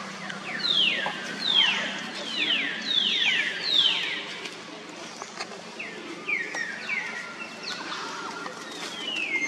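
High-pitched animal calls, each a quick downward slide, come in clusters of two or three through the first few seconds. They return more sparsely later and end with one longer falling call near the end, over a faint steady hum.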